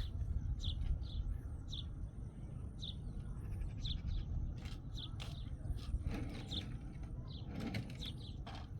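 A small bird chirping over and over, short falling chirps one or two a second, over a steady low rumble. A few faint knocks come near the end.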